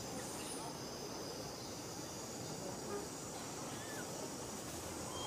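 Outdoor ambience: a steady background hiss with a faint, even insect drone high up, and a few faint short chirps.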